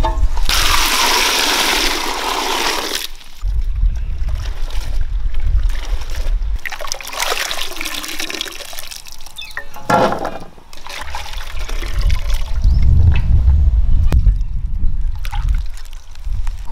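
Water pouring into an aluminium pot, then splashing and trickling as chopped snake gourd is washed by hand and lifted out in dripping handfuls.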